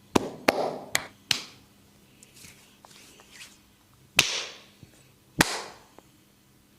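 A barber's hands slapping skin during a head massage: four sharp smacks in quick succession in the first second and a half, then two more a little over a second apart.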